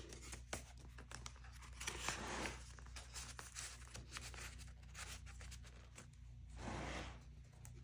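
Paper rustling and crinkling as the pages and tucked-in tags of a thick junk journal are handled and turned, with two louder page-turn swishes, about two seconds in and again near the end. A low steady hum runs underneath.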